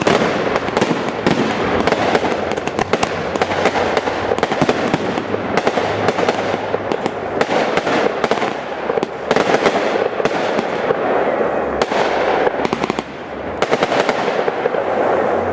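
Fireworks finale: a dense, continuous barrage of shell bursts and rapid crackling, easing briefly about thirteen seconds in before building again.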